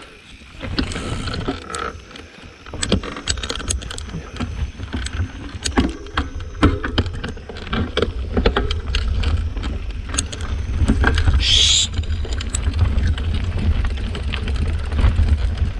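Mountain bike ridden over rough, broken ground: many small knocks and rattles from the bike over a low rush of wind on the microphone, which grows stronger in the second half. About two-thirds through comes a brief high-pitched sound lasting about a second.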